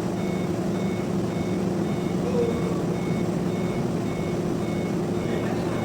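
Electronic warning beeper repeating a short high beep a little under twice a second, over the steady drone of running machinery.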